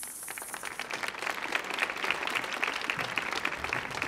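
Theatre audience applauding, the clapping swelling over the first second or so. A long sung hiss from the singers fades out in the first half second.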